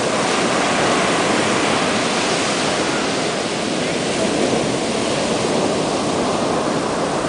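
Strong ocean surf breaking and washing up onto a sandy beach: a steady, even rushing of waves and foam with no pauses.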